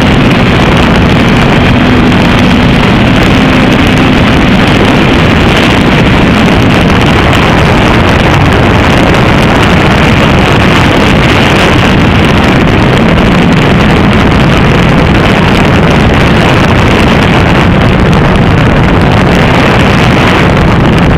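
FPV quadcopter's motors and propellers running, recorded on the drone's own camera, so the sound is a loud, steady, rushing whir mixed with wind on the microphone. A faint motor tone wavers in pitch during the first few seconds.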